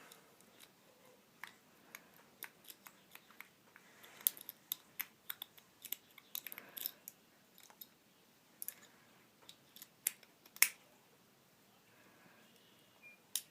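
Metal rake pick working the pins of a small Master padlock while a tensioner holds turning pressure: irregular light clicks and scrapes, one sharper click about ten seconds in, until the lock opens.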